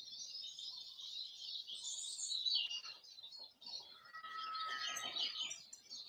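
A flock of goldfinches twittering in a dense, continuous chorus of high chirps, with a short rustle about five seconds in.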